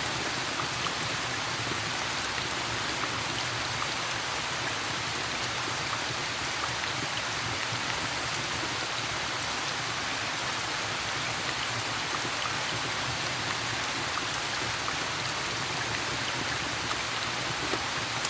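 Steady rain falling without a break, with faint small clicks scattered through it.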